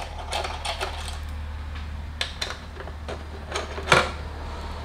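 Irregular metallic clicks and taps as the bolts and washers holding a Honda Grom's side fairing are backed off by hand, with one louder clack about four seconds in.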